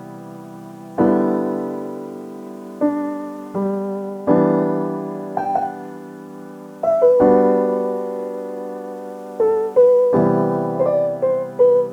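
Background music: a slow solo piano, sustained chords struck every couple of seconds and left to fade, with a simple melody of single notes over them.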